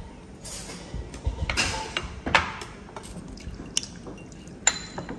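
A metal fork scraping and clinking against a ceramic rice bowl as a baby monkey scoops rice and egg. There are several short, separate scrapes and clicks.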